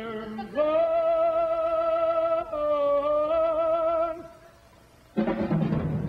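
A male crooner singing two long held notes with vibrato over a big band, the second a little lower. After a short lull, a loud drum hit comes about five seconds in.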